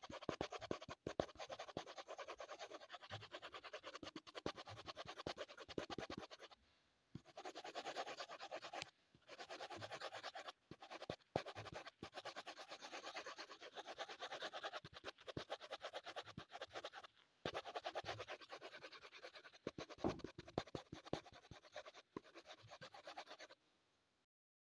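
Wooden coloured pencil scratching on paper in rapid back-and-forth shading strokes, in runs of a few seconds broken by short pauses; it stops about a second before the end.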